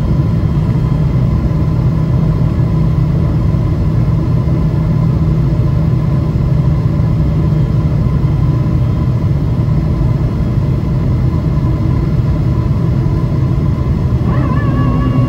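Steady in-flight cabin noise of a Boeing 777-300ER heard from a window seat over the wing: a low, even rumble of the GE90-115B turbofans and rushing airflow. Near the end a steady held tone with overtones comes in over it.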